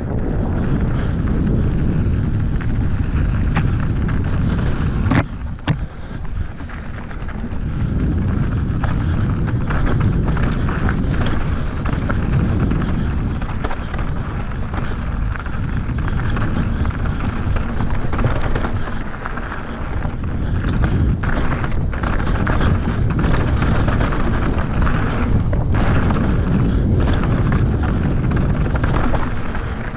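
Wind buffeting the action-camera microphone over the rumble of a mountain bike's tyres rolling fast down a dirt singletrack. A few sharp knocks about five seconds in, from the bike hitting bumps.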